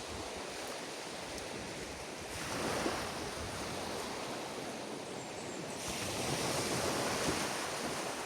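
Ocean surf on a beach: a steady wash of waves, swelling louder as a wave breaks about two and a half seconds in and again about six seconds in.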